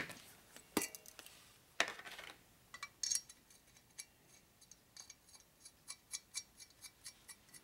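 Hand ratchet clicking in a steady rhythm, about three clicks a second, as a nut is run down a cylinder head stud on a shovelhead engine; a few sharp metal clicks and a short scrape come before it.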